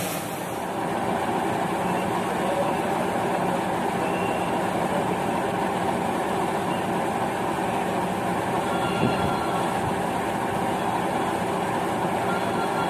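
Train running with a steady, even rumble.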